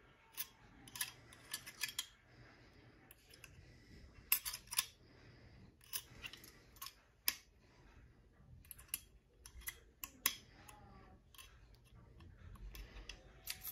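Small steel parts clicking and scraping against a Smith & Wesson 916A shotgun receiver as the cartridge cut-off is worked back into place inside it: scattered light metallic clicks.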